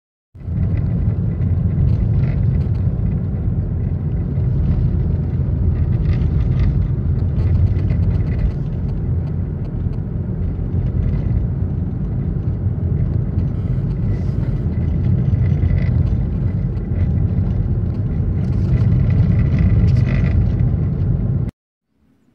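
Car driving, heard inside the cabin: a steady low rumble of engine and road noise with a light hiss above it, cutting off suddenly near the end.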